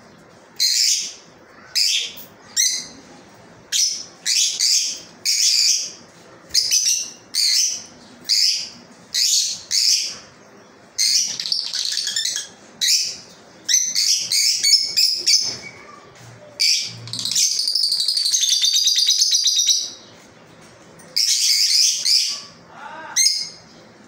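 Caged rosy-faced (peach-faced) lovebirds calling: a string of short, shrill, squeaky chirps, about one or two a second, with a couple of seconds of fast, unbroken chattering about three-quarters of the way through.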